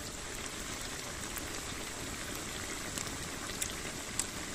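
Pork fat pieces bubbling and sizzling in a cast-iron cauldron over a wood fire as the fat renders out into lard, a steady seething with a few sharp pops scattered through.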